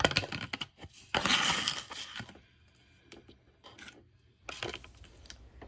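Brushing and wiping sounds of dust being cleaned off a fridge: two short rough scrubbing passes, the second lasting about a second. After a quiet spell come a few light knocks and clicks of handling near the end.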